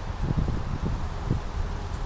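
Small brook running steadily, with short low gurgles several times a second.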